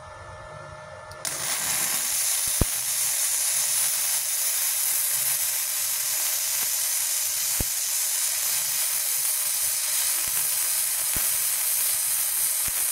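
Gasless flux-cored MIG welding arc from a Multipro MIG/MMA/TIG 160 inverter welder running 0.8 mm flux-core wire at about 69 amps. The arc strikes about a second in and runs as a steady hiss with a few sharp pops through one long bead.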